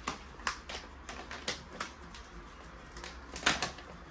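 Plastic supplement pouch being handled and opened: a run of short, irregular crackles and clicks, the loudest cluster about three and a half seconds in.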